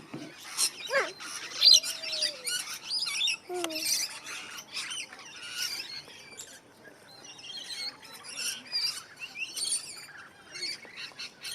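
A mixed flock of aviary birds, parrots and finches among them, chirping and squawking in many short, overlapping calls, with a few louder squawks about a second or two in.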